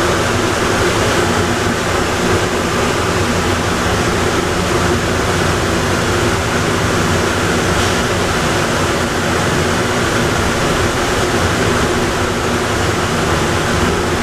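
Atlanta airport Plane Train people mover running, a steady, even noise of the moving car with no change in level.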